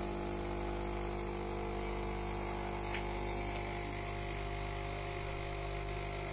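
Philips fully automatic coffee machine humming steadily as its pump brews espresso into a glass of frothed milk, with a faint click about three seconds in.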